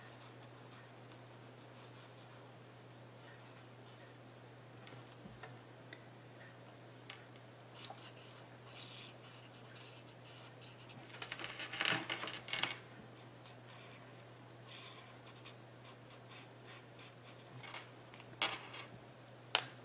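Blendabilities alcohol-marker tip scratching across cardstock in short, intermittent colouring strokes, starting several seconds in and loudest about midway, with a few light ticks near the end.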